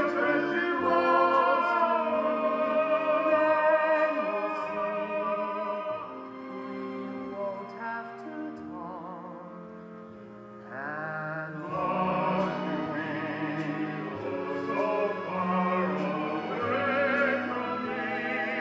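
Stage-musical singing: voices holding long notes with wide vibrato over accompaniment, with no clear words. It thins out and quiets for a few seconds midway, then swells again after an upward slide in pitch.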